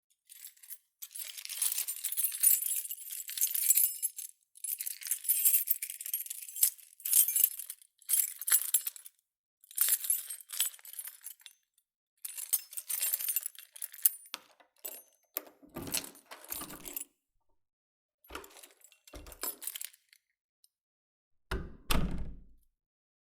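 A bunch of keys jangling in repeated bursts as they are handled, then the door lock being worked: a few clicks and knocks, and one solid clunk near the end as the lock is thrown.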